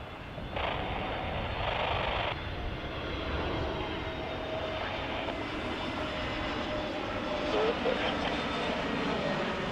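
Jet airliner engines running, a steady rumble with a faint whine that swells a little near the end. A band-limited hiss, like an open radio channel, sounds for about two seconds near the start.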